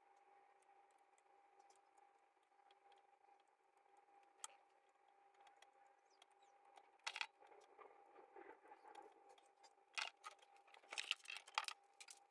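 Near silence with a faint steady hum, broken by small clicks and scrapes as a soldering iron and solder wire are worked over the joints of a circuit board. The clicks come more often and louder from about seven seconds in.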